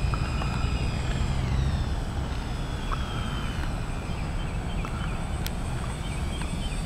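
Electric ducted fans of a four-engine RC Airbus A380 model whining steadily in flight; about a second and a half in the whine drops in pitch and then holds, as the fans are throttled back on the landing approach.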